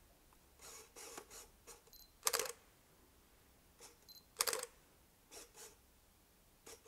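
Canon EOS 5 film SLR taking two shots about two seconds apart. Each is a short high autofocus-confirmation beep followed by the clack of shutter and mirror and the motorised film advance. Softer whirring of the lens autofocus hunting comes in the first second or so.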